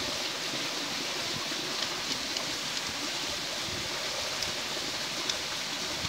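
Steady rushing of a waterfall, an even hiss of falling water, with a few faint clicks.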